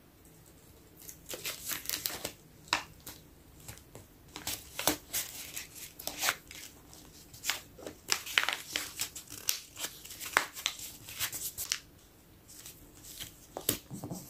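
A journal page being folded and creased by hand, rustling and crinkling in irregular bursts, with a short pause near the end.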